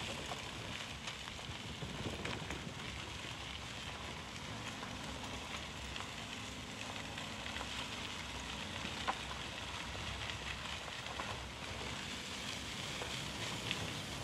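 Steady rushing noise of tyres rolling along a dirt road, with scattered small clicks and ticks of grit and stones.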